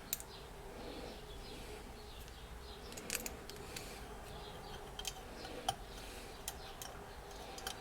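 Faint, scattered light clicks and taps of small screws and hand tools being handled on a workbench, over a faint steady hum.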